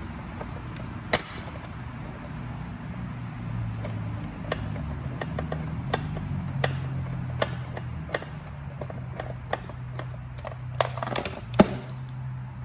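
Ratchet with a 10 mm socket undoing a bolt: scattered sharp clicks of the ratchet and socket on metal, over a steady low hum.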